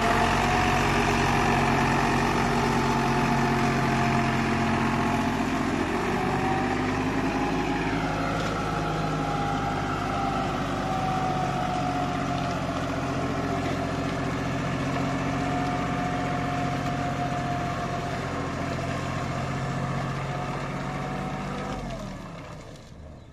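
Deutz-Fahr Agrolux 50 tractor's diesel engine running steadily under load, driving a paddy thresher, with the thresher's drum humming along. The pitch dips briefly about seven seconds in, and the sound fades away just before the end.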